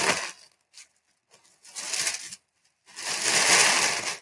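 Tissue paper crinkling and rustling as a picture is wrapped up in it, in two stretches, the second longer and louder.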